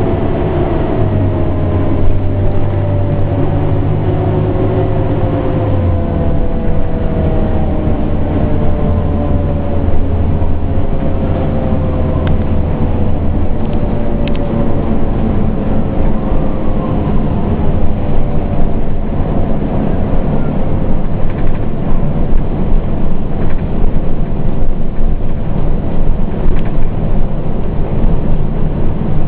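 Pierce Enforcer fire engine heard from inside its cab while driving: the diesel engine's steady low drone with road noise, and a tone that falls slowly in pitch over several seconds, twice. Knocks and rattles become more frequent in the second half.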